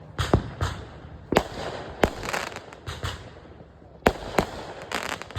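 Consumer fireworks going off: a string of sharp, irregularly spaced bangs, several followed by crackling. There is a lull around the middle, then a closer run of bangs near the end.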